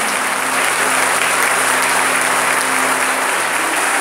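Church congregation applauding: a steady wash of many hands clapping.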